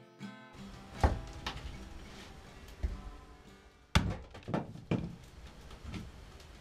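Irregular sharp wooden knocks and chops, about seven of them, the loudest about a second in and about four seconds in: kindling being split on a chopping block and handled in a small room.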